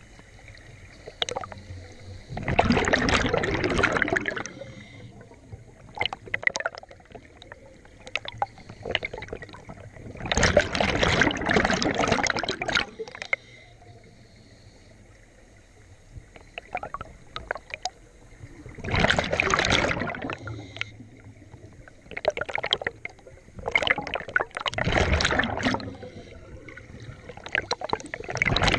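A scuba diver's exhaled bubbles rushing out of the regulator in six loud bursts, each lasting one to three seconds, with faint hiss and small clicks between breaths.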